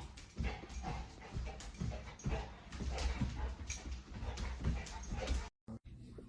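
A dog whimpering in short, irregular bursts. The sound cuts out completely for a moment near the end.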